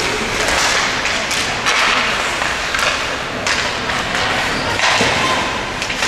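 Ice hockey play: several sharp knocks and thuds of puck and sticks striking the boards, over a steady noisy hiss of the rink.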